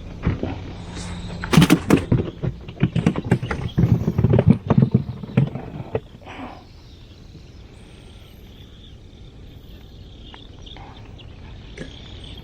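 Handling noise in a fishing boat: a run of knocks, clicks and clatter for about six seconds. It then stops, leaving a quieter steady outdoor background.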